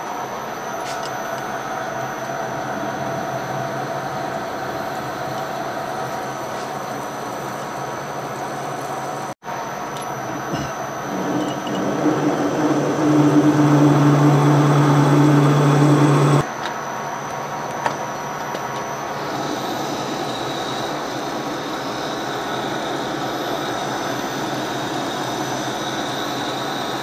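Metal lathe running with a workpiece spinning in the chuck while a drill bit in the tailstock bores into it, and then a boring tool cuts the inside. The running sound is steady. It grows louder with a low droning tone for several seconds in the middle, while the drill is cutting. A thin high whine comes in during the later cutting.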